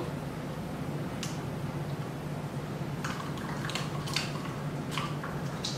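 Handled set of plastic measuring cups on a ring, clicking and rattling lightly a few times, over a steady low hum.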